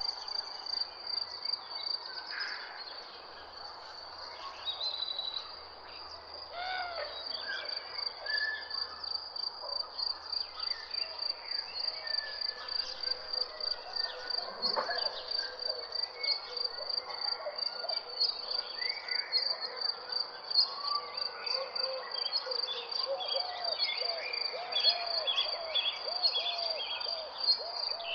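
An insect, likely a cricket, keeps up a steady, rapidly pulsing high chirr, while several birds call and chirp. Near the end, one bird repeats a short low note about twice a second.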